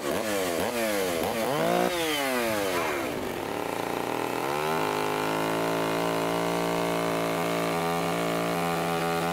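Large Stihl two-stroke chainsaw with a long bar, revved in several quick throttle blips, the pitch falling after each. From about four and a half seconds in it is held at a steady high speed.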